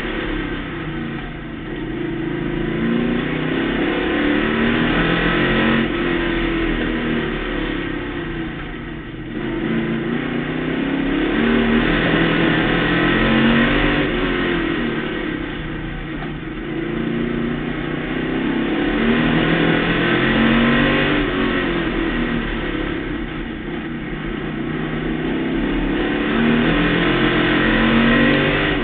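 Pro stock race car engine heard from inside the car while lapping an oval track. It revs up and eases off in a repeating cycle, rising and falling in pitch and loudness about every seven to eight seconds.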